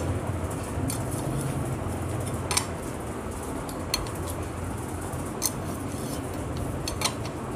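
A 10 mm T-handle socket wrench turning and seating the head nuts on a Honda CD100 engine: a few separate light metallic clicks and clinks, spaced a second or more apart, over a steady low hum.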